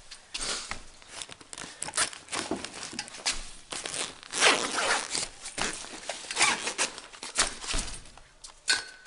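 Irregular rustling, scraping and crinkling as things are handled and gathered up, loudest about four and a half seconds in.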